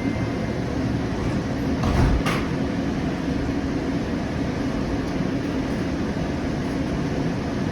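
Inside a Siemens S700 light rail car: a steady low rumble, with the sliding doors closing in a short thud and clack about two seconds in.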